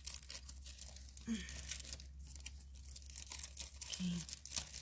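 Plastic bags and cellophane packaging crinkling and rustling as they are handled, a string of irregular short crackles.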